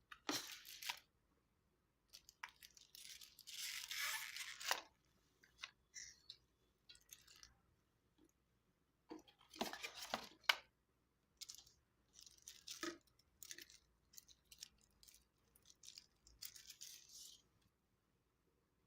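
Knife packaging being torn open and handled: irregular bursts of rustling and tearing, with short pauses between them.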